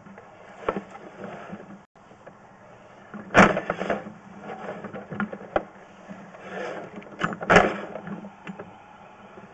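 Sewer inspection camera being pulled back through the drain line by its push cable: irregular knocks and clatter over a steady low hum, with two loud clunks, about three and a half and seven and a half seconds in.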